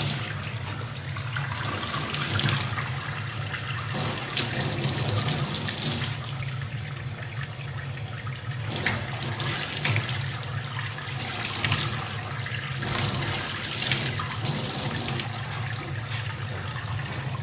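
Water running steadily, with a continuous low hum underneath.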